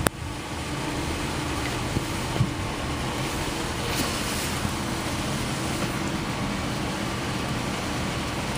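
Steady outdoor background noise, a low rumble under an even hiss, opening with a sharp click.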